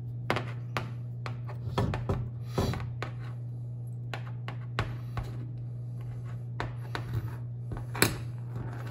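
Scattered light metallic clicks and taps of a small screw and lock washer being handled and fitted, with the sharpest click about 8 seconds in. A steady low hum runs underneath.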